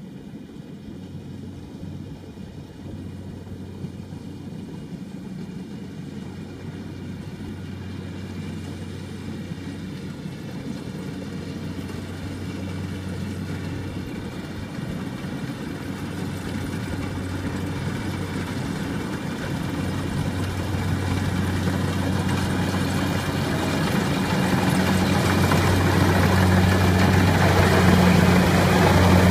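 Tracked rice combine harvester's engine running steadily, a low drone that grows louder as the machine comes close, with more rattling noise building near the end.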